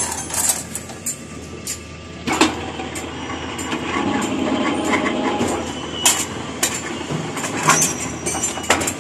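Electric rebar bending machine running, its disc turning as ribbed steel bar is bent into stirrups: a mechanical rumble that swells through the middle, with about six sharp metallic clanks of the bar striking the steel table and pins.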